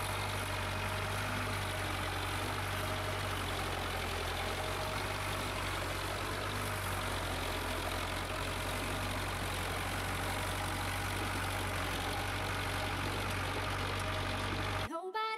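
Zetor 7245 tractor's four-cylinder diesel engine running steadily under load while pulling a plough through the field. The steady hum cuts off abruptly just before the end.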